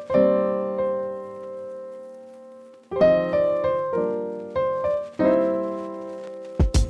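Background piano music. A chord rings out and fades for about three seconds, then a run of chords follows, and drum hits come in near the end.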